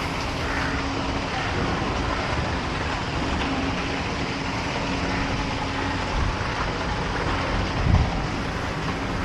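Steady rushing, rumbling noise with a faint low hum coming and going, and a brief thump about eight seconds in.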